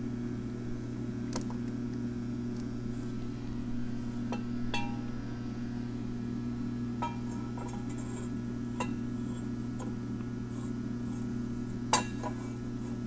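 Scattered light metallic clinks and taps as a steel tilting angle table is adjusted and handled, over a steady low shop hum. The loudest clink, about twelve seconds in, comes as a turbine housing is set down on the table's slotted steel top.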